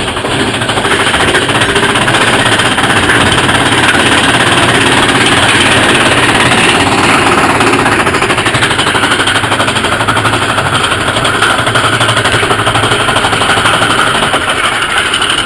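Mine-train roller coaster cars rattling and clattering along the track at speed, a rapid continuous rattle with a rushing noise over it.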